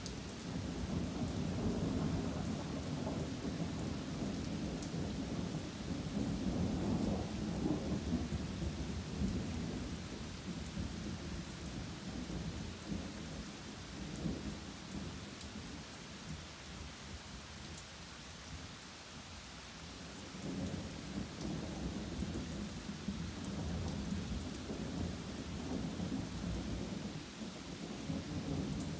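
Rolling thunder rumbling on and on over steady rain. The rumble is strongest in the first third, fades about two-thirds of the way through, then builds again near the end, while the rain's hiss and patter holds steady.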